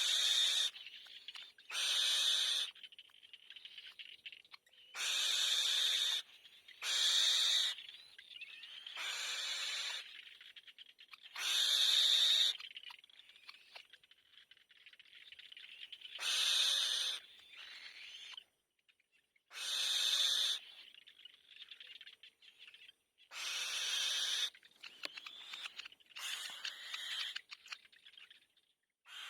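Nestling birds giving harsh begging calls for food, each call under a second long, repeated about ten times at irregular gaps of one to four seconds, with fainter calling in between.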